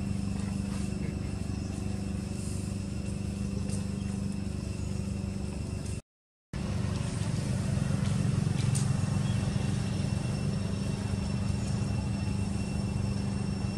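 A steady low motor hum with a faint high steady tone above it. The sound cuts out completely for about half a second around six seconds in, then returns slightly louder.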